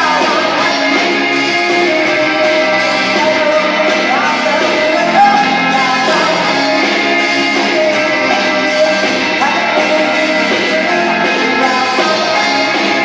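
Live pop band playing through a PA: a lead singer over electric guitars, keyboard and drums.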